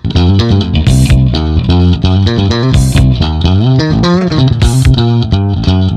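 Background music: guitar and bass guitar with a steady beat.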